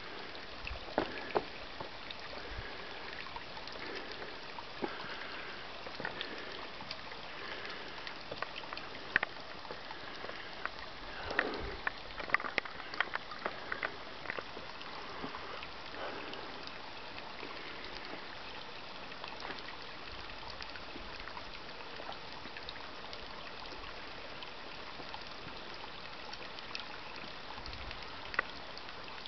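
A small, shallow desert brook trickling and bubbling over rocks, a steady water sound with scattered brief clicks.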